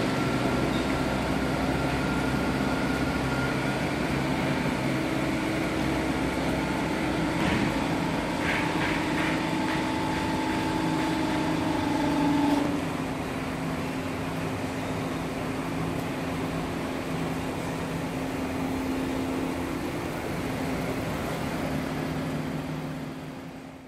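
Plywood-making machinery running with a steady hum of several held tones. A few light ticks come around the middle, some of the tones stop soon after, and the sound fades out at the very end.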